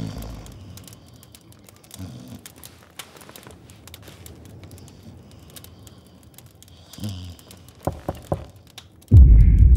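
Quiet room ambience with faint crackling and scattered clicks. About eight seconds in come three sharp knocks in quick succession, followed a second later by a sudden, loud, deep boom that keeps sounding.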